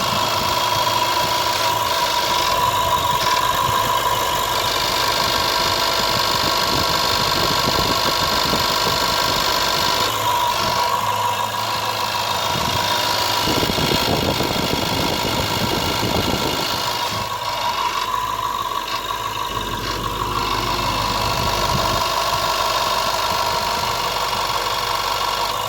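Range Rover 5.0 L V8 running, with a steady whining tone over the engine sound that seems to come from the engine block; the owner takes it for a failing fuel pump.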